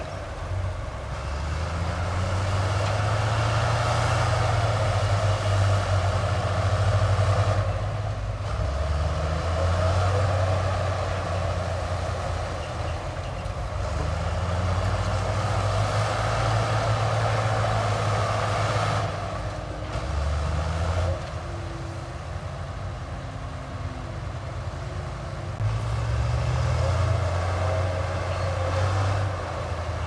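Heavy diesel engine of construction machinery working under varying load. It builds up and eases off several times, with quieter stretches about a third of the way in and for a few seconds past the middle.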